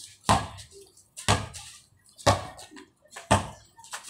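A basketball being dribbled on concrete: four bounces, about one a second, each a sharp slap with a short ringing tail.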